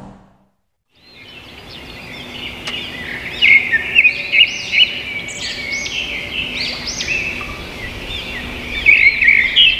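Birds chirping, a busy run of short, rising and arching calls that fades in after about a second of silence.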